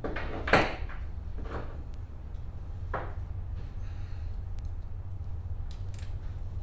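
Metal hand tools clunking and scraping against a garden tractor engine during reassembly: one loud clunk about half a second in, then a couple of softer knocks.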